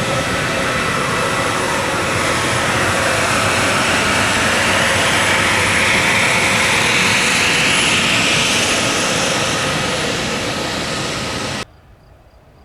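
Airbus A320neo jet engines at high power as the airliner passes: loud, steady jet noise with a thin whine, swelling through the middle and easing off. The sound cuts off abruptly near the end, leaving faint, evenly repeating chirps.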